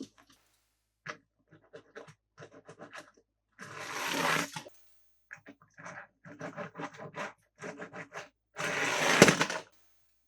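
Plastic toy pieces being handled: a run of small clicks and rattles, with two longer scraping sounds about four seconds in and again near the end, the second one louder.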